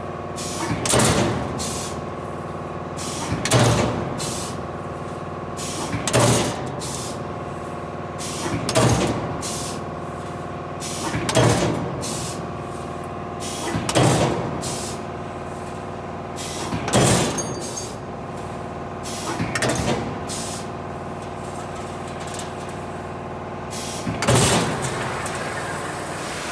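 CNC turret punch press running: a steady machine hum with a few held tones, broken about every two and a half seconds by a loud burst of close-set knocks.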